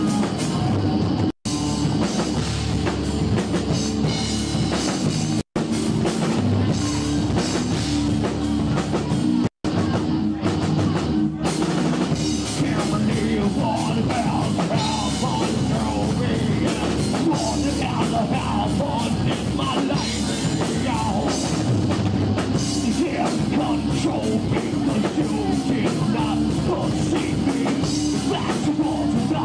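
Live heavy metal band playing loudly: distorted seven-string guitar, five-string bass and drum kit. The recording cuts out for an instant three times in the first ten seconds.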